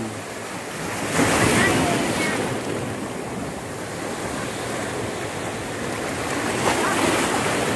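Sea waves washing with wind on the microphone, swelling about a second in and again near the end.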